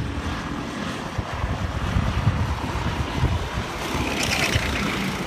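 Go-kart engines running as karts drive round the track, with wind rumbling on the microphone. A brief higher, louder noise comes about four seconds in, as the nearer kart passes close by.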